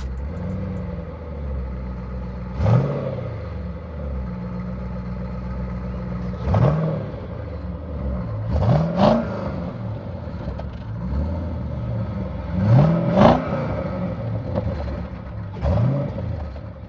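Chevrolet Lumina SS's 5.7-litre LS1 V8 idling after a cold start, blipped about seven short times, some in quick pairs, each rev rising and dropping back to idle. The owner takes the running for a slight misfire from standing too long.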